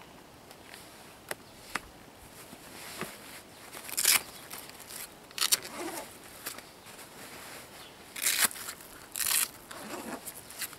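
Motorcycle boots being unfastened by hand: four short ripping noises, with a couple of small clicks before them and light rustling of clothing.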